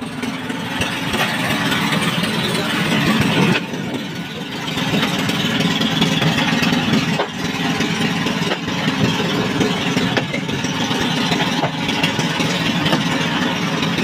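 Fishing boat engine running steadily, with water splashing and churning as a netful of fish thrashes at the surface alongside.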